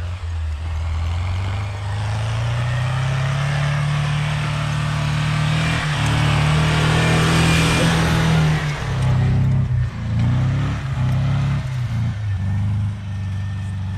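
Off-road 4x4 engine revving hard under load, its pitch climbing steadily for several seconds under a rushing hiss, then revs rising and falling in short bursts near the end.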